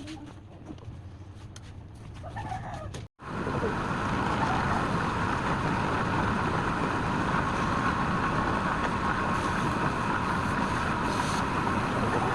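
A rooster crows over quiet surroundings. About three seconds in, after an abrupt cut, a louder steady machine noise with a constant whine runs on.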